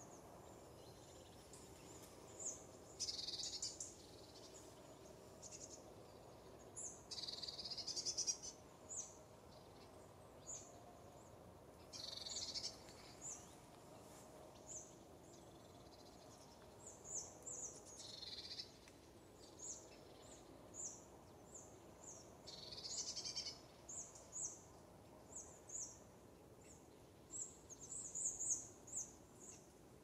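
Faint woodland songbird calls: thin, high chirps at irregular intervals, clustering near the end, with several longer phrases of about a second each every few seconds.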